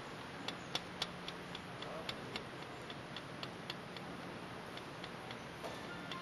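Light, irregular clicks of balls knocking in a self-rolling ball-return system, several a second at first and thinning out toward the end.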